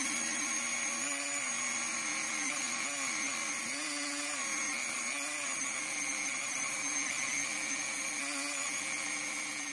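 Handheld rotary tool with a small wheel running steadily against a pocket knife's metal handle piece, cleaning it up. It gives a high whine whose pitch sags briefly several times as the wheel is pressed to the metal.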